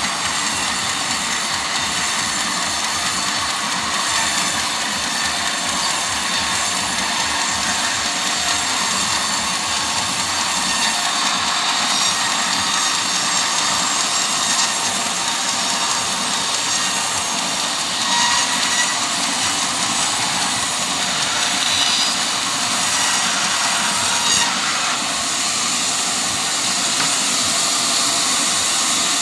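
Sawmill saw cutting through teak timber: a loud, steady saw noise that runs on without a break.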